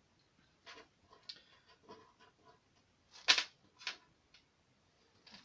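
Handling of a shotgun and its mounting parts: scattered small clicks and ticks, then two sharper knocks, one a little past three seconds in and one near four seconds.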